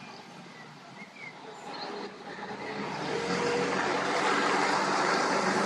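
Mercedes Actros 2632 garbage truck's diesel engine running as the truck drives off, quieter at first and growing louder from about two seconds in.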